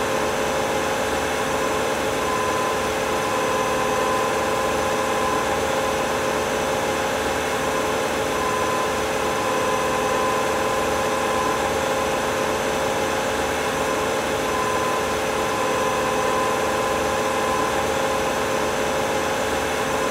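2002 Mercury Sable wagon's V6 engine running steadily at medium rpm, heard up close at the engine. It holds an even hum, and a higher whine fades in and out every few seconds.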